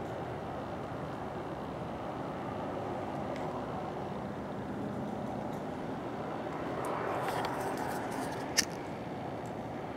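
Steady low rumble of distant road traffic, swelling a little about seven seconds in, with a single sharp click near the end.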